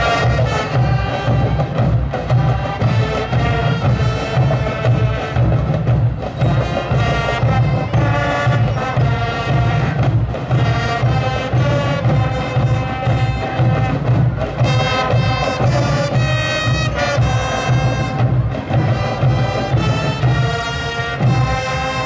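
Student marching band playing: brass section with trumpets and trombones over a steady beat of bass drums and percussion.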